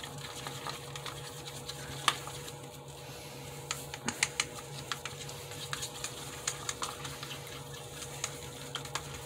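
Wooden craft stick stirring thick pearl acrylic pouring paint in a plastic cup, making irregular light clicks and taps against the cup wall, more of them in the second half. A steady low hum runs underneath.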